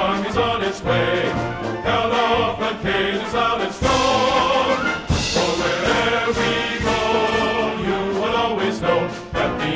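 Orchestral music with a choir singing.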